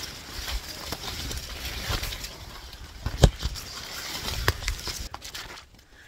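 Corn leaves rustling and swishing as someone pushes through a cornfield, with a few sharp snaps or knocks, the loudest a little past three seconds in. The rustling dies down shortly before the end.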